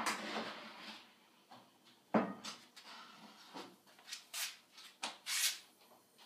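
Kitchen handling noises: a sharp knock about two seconds in, then a string of short rubbing noises.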